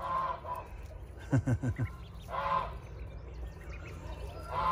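Ducklings and a gosling giving short calls, a few at a time with gaps between. The loudest is a quick run of low, falling calls about a second and a half in.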